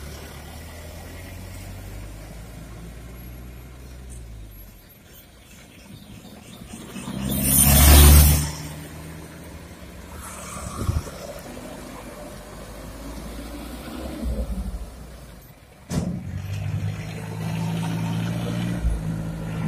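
Diesel engine of a Mitsubishi light dump truck driving past on a dirt road, swelling to a loud rush of noise about eight seconds in as it comes close. About sixteen seconds in it gives way abruptly to another truck's diesel engine running steadily.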